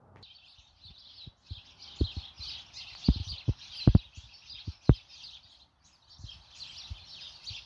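Ribeye steak sizzling on a grill grate over the fire: an uneven, crackly hiss, broken by a few dull low knocks.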